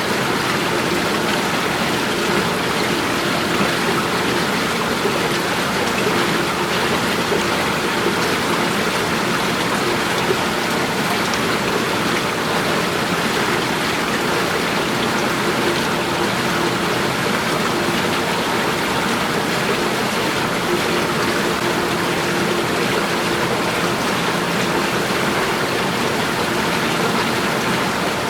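Running water splashing and rushing at a steady level, with no breaks or changes.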